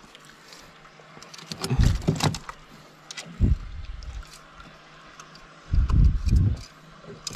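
A few dull bumps and low rumbles from handling gear inside a small wooden boat, with one short, sharper knock about three and a half seconds in.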